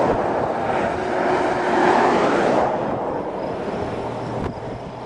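A vehicle passing on the road with a rushing sound of tyres and air, building to a peak about two seconds in and then falling away, leaving a faint low hum.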